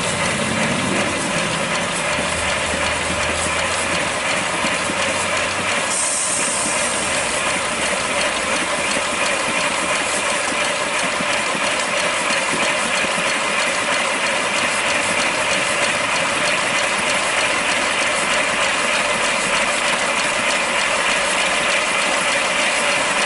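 5-inch gauge live steam BR Standard Class 4 tank locomotive running on a rolling road: a fast, even clatter of the wheels on the rollers and the valve gear, with steam hiss. A sharper hiss comes in briefly about six seconds in.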